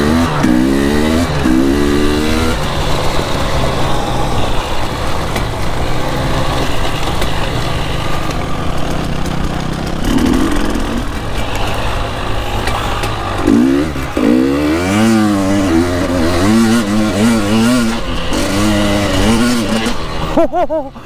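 KTM 300 EXC two-stroke dirt bike engine revving up and down repeatedly as the throttle is worked through the gears, its pitch climbing and falling in quick sweeps. The engine drops off sharply near the end.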